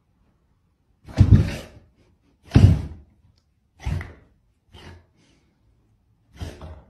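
A dog and a cat play-fighting: five short, noisy bursts about a second apart, the first two the loudest.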